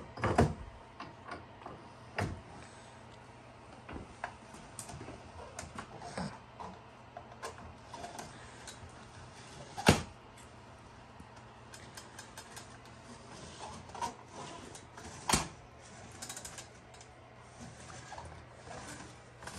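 Scattered clicks and knocks of hand tools and small engine parts being handled, with single louder knocks about ten and fifteen seconds in; the trimmer engine is not running.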